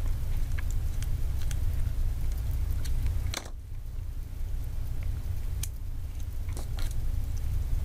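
Light plastic clicks and small taps as a small screwdriver works the plastic case of a personal emergency pendant button, heard over a steady low rumble.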